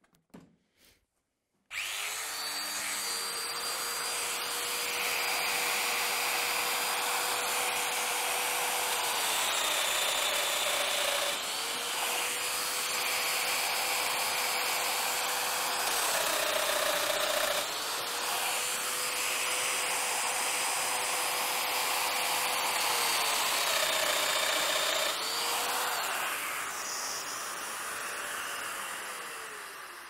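A couple of light clicks, then a Festool DF 500 Domino joiner starts with its dust extractor and runs with a steady whine and rush of suction while plunging its cutter into the edges of wooden panels. The whine dips in pitch three times, then the machine winds down with a falling pitch near the end.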